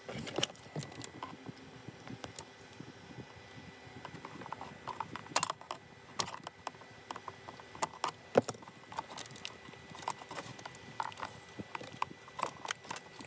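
Irregular small clicks, taps and scrapes of a flathead screwdriver prying at a plastic wiring connector behind the steering column, metal against plastic and bracket. A faint steady high tone runs underneath.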